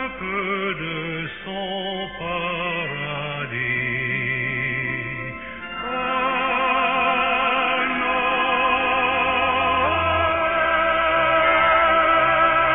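Classical-style background music: a voice singing with wide vibrato, giving way about six seconds in to louder sustained chords.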